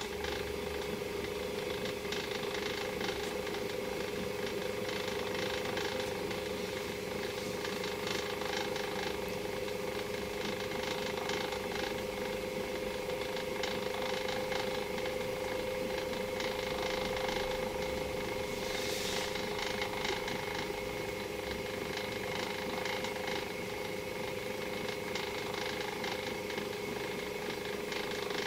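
Small electric motor of a rotating display turntable running with a steady hum, with a brief hiss about two-thirds of the way through.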